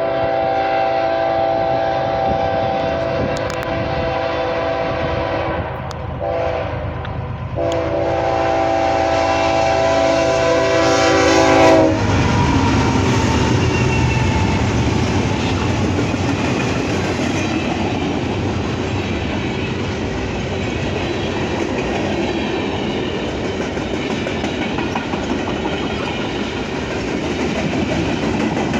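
Diesel locomotive's multi-note air horn sounding two long blasts with a short break between them. About twelve seconds in, the horn stops and the train passes close by with a steady, loud rumble and the clacking of wheels over the rail joints.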